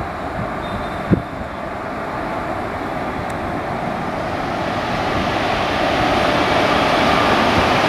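WAP-4 electric locomotive hauling a long passenger train approaching, its running noise of wheels on rail growing steadily louder as it nears. A single sharp thump about a second in.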